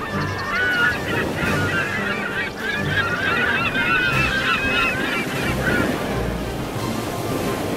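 A flock of birds calling at once: many short, overlapping honking and squealing calls that thin out and stop about five and a half seconds in. Underneath is a steady low wash of wind and water.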